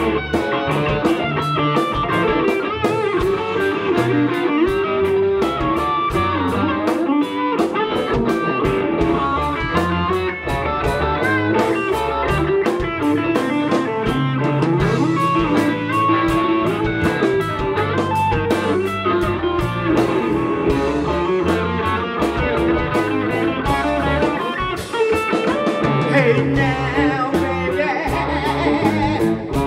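Live blues-rock band playing: electric guitars over bass guitar and a drum kit keeping a steady beat. A singer's voice comes in near the end.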